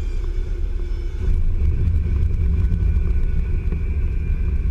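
Cessna 150's engine and propeller running at low power during the landing rollout, heard inside the cabin as a steady low rumble that grows slightly louder about a second and a half in.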